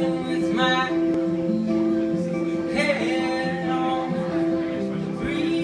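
Live acoustic music: two acoustic guitars strumming under a violin playing long held notes.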